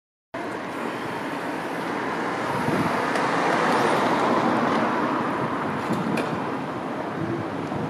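Street traffic noise: a steady hiss of road vehicles that swells gently around the middle and eases off again.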